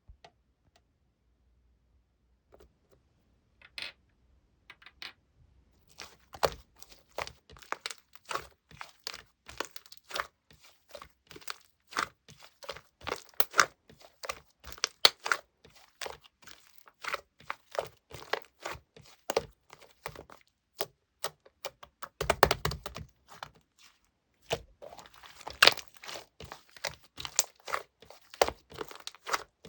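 Slime being squeezed and poked by hand, giving a run of small crackling, popping clicks. They are sparse at first, then come several a second from about six seconds in, with a longer, deeper cluster of pops a little past the twenty-second mark.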